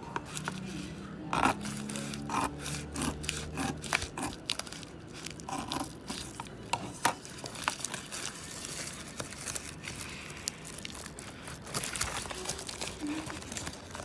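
Scissors cutting open a plastic bubble-padded mailer, with irregular snips and crinkling of the plastic as it is handled and pulled open; the crinkling gets denser near the end.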